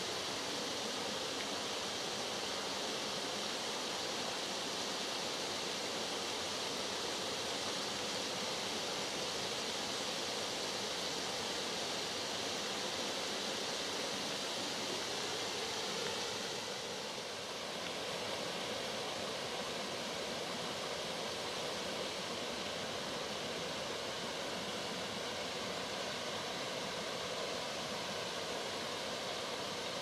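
A small forest mountain brook flowing, a steady rushing of water, with a brief dip in level and a slight change in its sound just past halfway.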